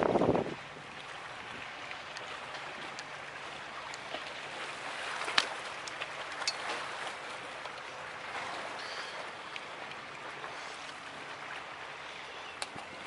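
Steady wind and water washing on the rocks of a sea wall, with a short loud bump right at the start and a few sharp clicks later on.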